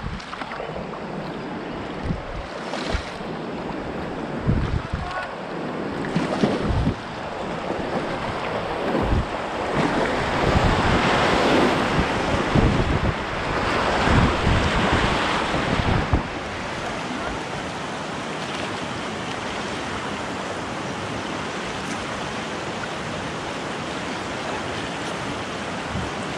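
Rushing river water, a steady roar that grows louder for several seconds in the middle, with low thumps of wind buffeting the microphone.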